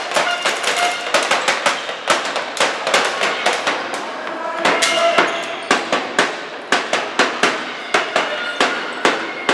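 Spectators beating a hand drum and clapping in a quick steady rhythm, about three beats a second, with voices shouting over it. Each beat rings on briefly in the echoing sports hall.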